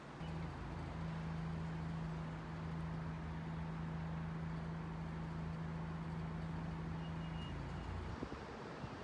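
A steady low mechanical hum that switches on just after the start and cuts off suddenly about eight seconds in.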